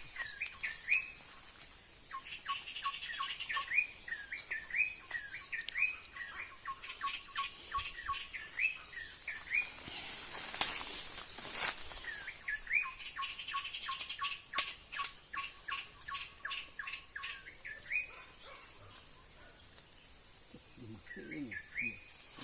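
Birds chirping over and over in short hooked notes, pausing briefly near the end, over a steady high-pitched drone of insects.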